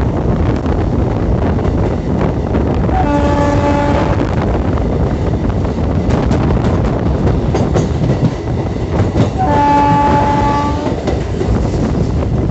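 Two blasts of an Indian train's horn: a short one about three seconds in and a longer one, about a second and a half, near ten seconds in. Between them the train runs along with a steady rumble, wheel clicks on the rails and wind buffeting the microphone at the open coach door.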